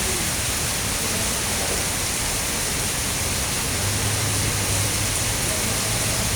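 Heavy tropical rain pouring down, a steady dense hiss. A low hum joins about four seconds in and runs to near the end.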